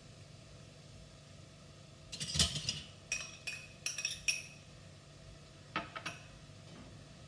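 Kitchen utensils and dishes clinking: a quick run of ringing clinks about two seconds in, then two more a little before the end.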